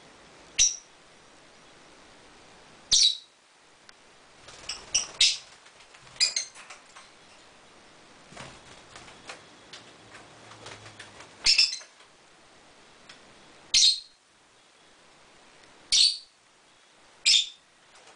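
Lovebirds calling: about eight loud, shrill single calls spaced a few seconds apart, with softer chattering between them around the middle.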